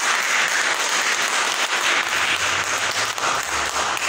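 Audience applauding: many hands clapping steadily, starting to die away near the end.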